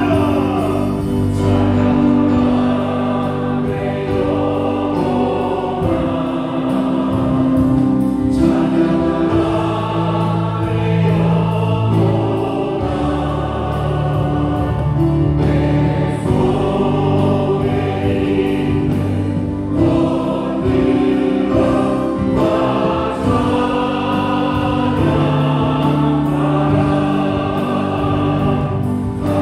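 A worship team sings a slow church worship song together, accompanied by a Yamaha Montage 8 keyboard, electric bass guitar and drum kit.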